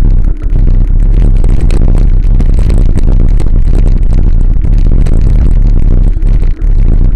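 Wind buffeting the microphone of a camera mounted on a moving bicycle: a loud, constant low rumble. Many small clicks and rattles from the camera and mount run through it as the bike rolls over the road.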